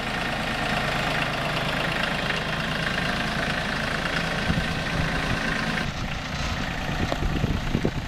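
Compact tractor engine running steadily as the tractor drives. The hum grows rougher and more uneven about halfway through.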